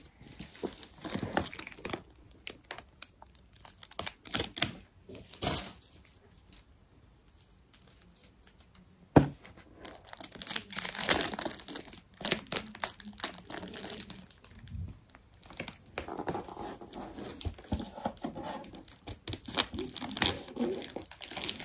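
Plastic packaging film crinkling and tearing as a gift is unwrapped by hand, in irregular bursts with a quieter stretch in the middle. A single sharp click about nine seconds in is the loudest sound.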